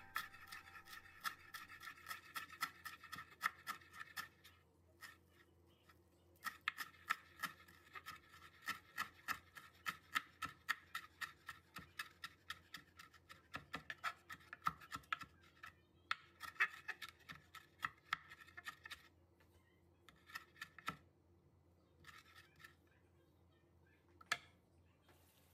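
Chef's knife chopping fresh leafy herbs on a wooden cutting board: quick, repeated taps of the blade through the leaves onto the wood, a few strokes a second, stopping briefly a few times.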